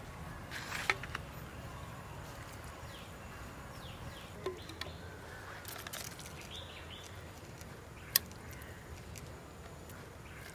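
Forest ambience: insects buzzing over a steady low hum, with faint chirps and a few small clicks of handling. A single sharp click comes about eight seconds in.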